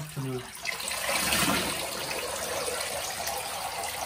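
Water poured over a dog's head and splashing into a bathtub, a steady rush starting about a second in. A short low voice sound comes just before it.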